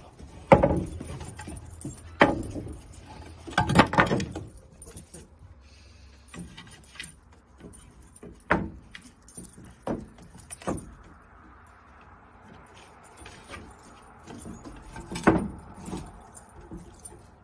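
Long wooden plank knocking and clattering against wooden deck boards as a Weimaraner bites, lifts and drags it, a series of separate sharp knocks a second or more apart, with a loud one about 15 seconds in.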